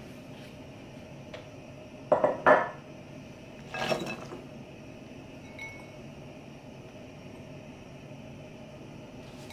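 Two sharp clinks of kitchenware about two seconds in, then a brief clatter as chopped carrots, broccoli and mushrooms are tipped from a bowl into a stainless steel skillet.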